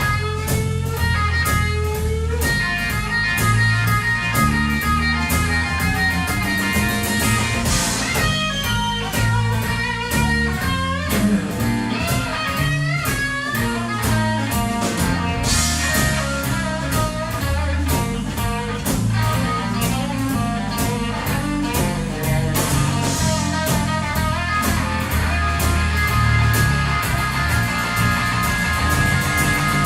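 Blues-rock band playing an instrumental stretch: guitar lead with bent notes over bass and a steady drum beat, no singing.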